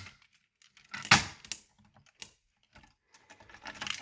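Clicks and a short rattle from a replica BG-12-style fire alarm pull station being handled as it is reset. The loudest clack comes about a second in, followed by a few faint ticks.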